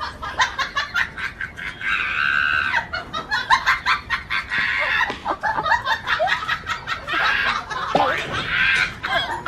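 Chickens squawking and clucking in agitation during a scuffle with a dog, with a rapid run of short clicks and scrapes. Several longer, loud squawks come about two seconds in, past the middle and near the end.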